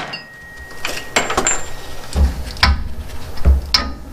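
Irregular metal clinks and knocks of tools and steering linkage parts being handled under a truck's front end, with a few dull thumps in the second half.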